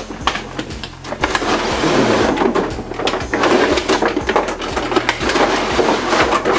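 Cardboard toy-gun box and its clear plastic tray insert being handled and unpacked: continuous rustling and crinkling with many small crackles.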